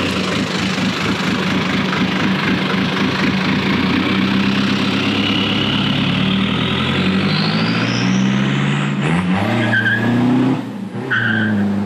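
Vehicle engine running and revving, its pitch stepping upward, with a thin whistle that climbs steadily in pitch through the middle. Near the end the sound drops briefly and then picks up again.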